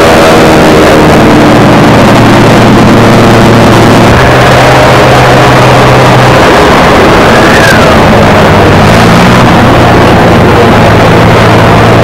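Piston warbird engines running very loud, a steady rumble whose pitch shifts a little as the engines change speed.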